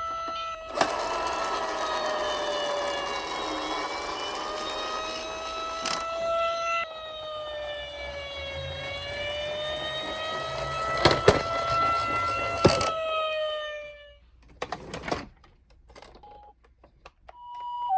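Toy fire engine's electronic siren wailing, its pitch sliding slowly down and up over a steady hiss, with a few sharp clicks; it cuts off about 14 seconds in. Near the end a two-tone hi-lo siren starts, the pattern of a Japanese ambulance.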